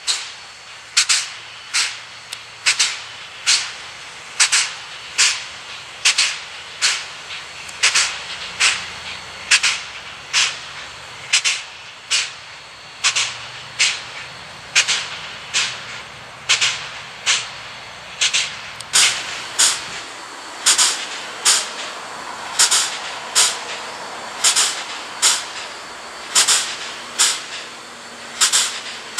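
Steam-driven air pump of a PKP Pt47 steam locomotive working while the engine stands: a regular hissing chuff, a little more than once a second, which keeps the train's brake reservoirs charged.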